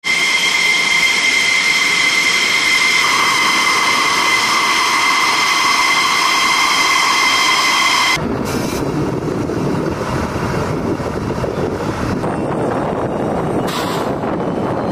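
F-16 fighter jet engine running at taxi idle, with a steady high-pitched turbine whine over the exhaust noise. Just after eight seconds the sound cuts abruptly to a lower, rougher jet rumble without the whine.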